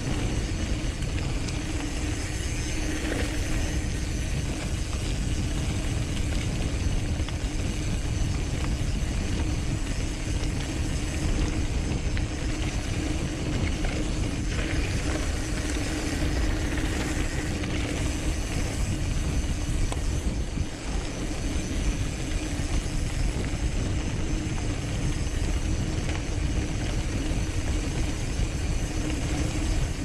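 Cross-country mountain bike ridden fast down a rough forest trail: continuous rattling and rumbling of the bike and tyres over roots and rocks, with a steady low hum underneath.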